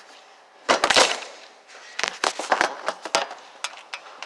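Sharp clacks and taps of toy cooking utensils: a quick cluster of loud knocks about a second in, then a run of separate lighter taps.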